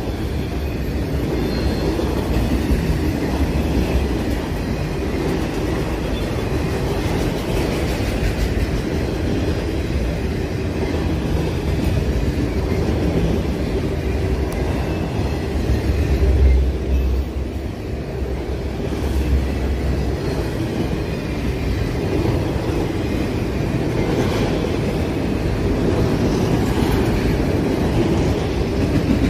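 Freight train of autorack cars rolling past, its steel wheels on the rails making a steady rumble. A little past the middle it swells briefly, then dips for a moment.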